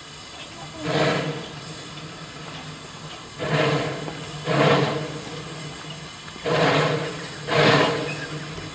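Small steam locomotive's exhaust chuffing in five slow, uneven beats a second or two apart, each a short blast of steam over a steady background hiss: the engine working at very low speed.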